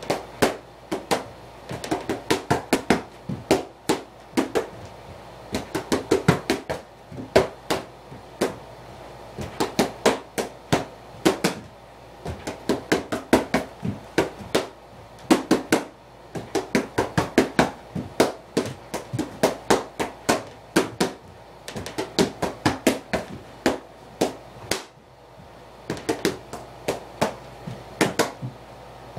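Boxing gloves smacking focus mitts in rapid combinations, several sharp slaps to a run, with short pauses of about a second between combinations.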